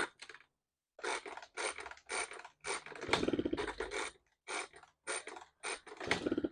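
A 1977 Honda Express NC50 moped being cranked over repeatedly without the two-stroke engine catching, heard as irregular bursts of scraping and clatter.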